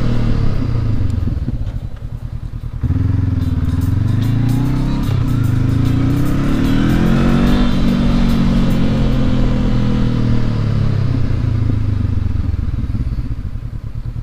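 Motorcycle engine heard from the rider's seat. It eases off at first, then pulls away strongly about three seconds in, its pitch rising and dropping back several times, and falls away near the end as the bike slows.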